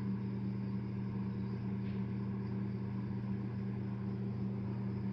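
A steady, unchanging low mechanical hum, like a motor or appliance running in the background.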